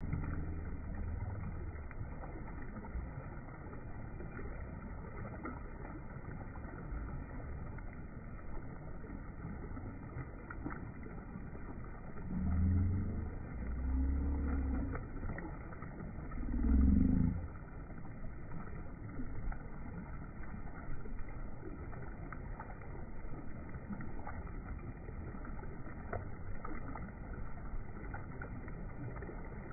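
Shallow stream water flowing around a person's hands and legs, slowed down with slow-motion video so that it is a low, muffled rumble. About twelve seconds in come three deeper, drawn-out swells with sliding pitch.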